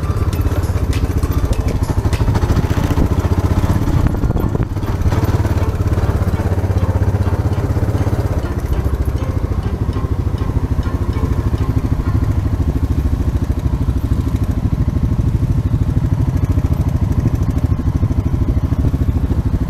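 Trail motorcycle engine running under way on a dirt track, heard close from the rider's own bike: a steady low drone of rapid firing pulses, with a brief dip about four and a half seconds in.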